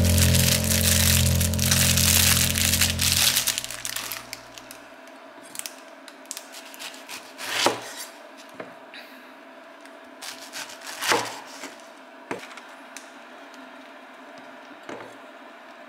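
Background music fading out over the first four seconds or so, then a santoku knife cutting through enoki and shimeji mushroom clusters onto a wooden cutting board: about five separate knife strikes on the board, the loudest about eight and eleven seconds in.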